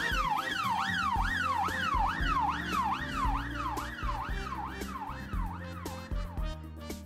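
Emergency-vehicle siren in a fast yelp, each quick rise and fall repeating about three times a second, fading away near the end, over backing music.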